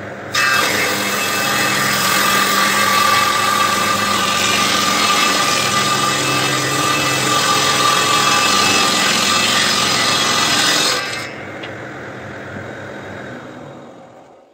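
Table saw ripping a wooden board lengthwise along the fence. The blade bites in about a third of a second in and cuts with a loud, steady noise and a whine for about ten seconds. The saw then runs free at a lower level and fades out near the end.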